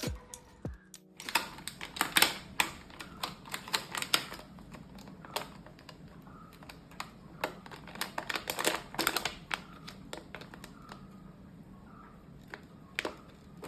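Irregular sharp clicks and taps from hands-on kitchen work, some coming in quick clusters, after background music stops about a second in.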